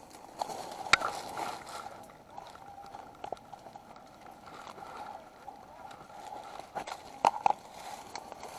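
Rustling and scuffing of a player moving through brush and leaf litter, over a steady hum, with a sharp click about a second in and two more close together near the end.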